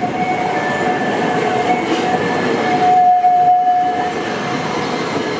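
Toden Arakawa Line tram running slowly over curved street track, its wheels squealing in high steady tones over a rolling rumble. The squeal comes and goes and is loudest about three seconds in.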